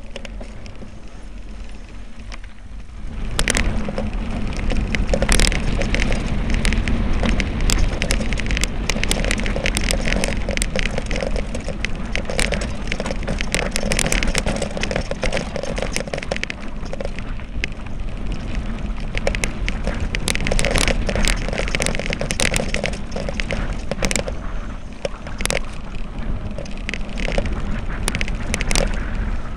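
Mountain bike riding fast down a rough dirt and gravel trail: a steady rush of tyre and wind noise with many sharp rattles and clacks over the bumps. It starts about three seconds in, after a quieter moment.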